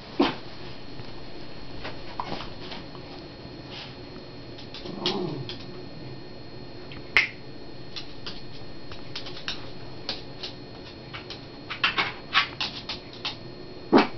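A kitten and a Jack Russell terrier play-fighting on a bed: scattered sharp clicks and scuffs, bunched together near the end, with one short cry falling in pitch about five seconds in.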